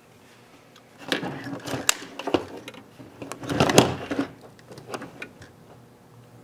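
Irregular clicks, taps and rattling of small tools and parts being handled at a workbench, in clusters, loudest a little under four seconds in.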